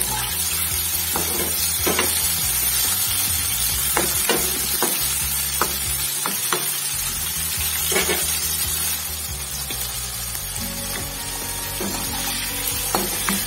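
Button mushroom pieces deep-frying in oil in a kadai, a steady sizzle. A perforated skimmer stirs them, with a short clink or scrape against the pan now and then.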